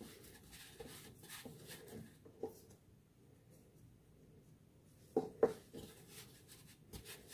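Hands mixing and kneading crumbly potato-and-flour dough in a stainless steel bowl: faint rubbing and scraping, with a few soft knocks against the bowl about two and a half and five seconds in.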